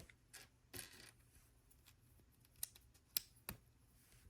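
Faint sharp clicks of small plastic LEGO pieces knocking together as they are handled and picked through, five or so scattered clicks with a short rustle about a second in.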